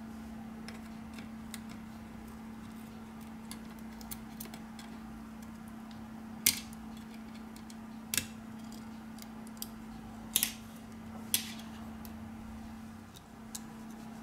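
Small tools and parts of a Samsung Galaxy Note 4 clicking and tapping as the phone is taken apart: faint ticks throughout and a few sharper clicks in the second half, over a steady low hum.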